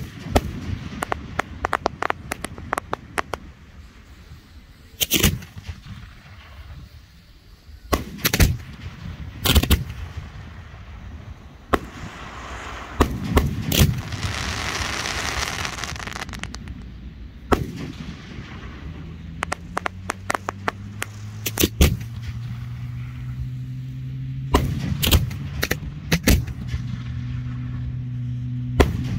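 Fireworks bursting overhead: sharp bangs, some single and some in rapid volleys, with a stretch of hissing crackle about halfway through. From about two-thirds of the way in, a steady low engine drone sits under the bangs.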